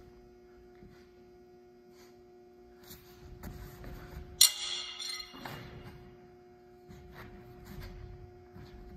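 A pair of metal sai clink once, sharply, about halfway through, leaving a brief bright metallic ring, amid soft shuffling steps and movement on a hard gym floor. A steady low hum runs underneath.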